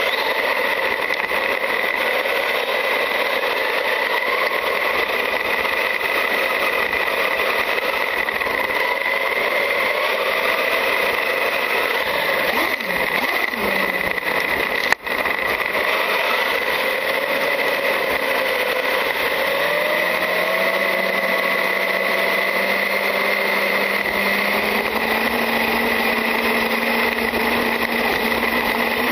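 Traxxas UDR RC truck driving over sand and gravel, heard from its own onboard camera as a steady noisy hiss with a constant high tone. In the second half a faint whine from its brushless motor shifts in pitch. There is a single sharp click about halfway.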